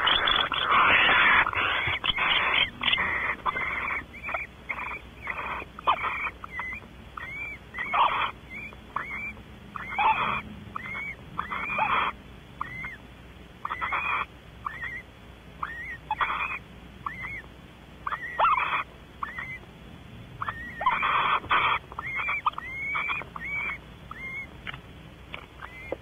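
Barn owls calling: a run of short, hooked, chittering calls about one a second, with longer harsh hissing screeches at the start and again about twenty-one seconds in.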